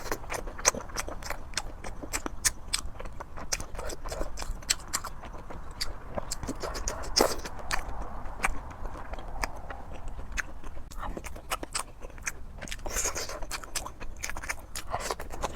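Close-up eating sounds: a person chewing, with many irregular sharp clicks and smacks.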